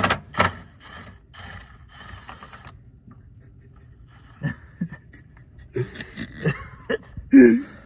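Breathy, stifled laughter in short panting bursts, with a few sharp clicks of parts and tools being handled.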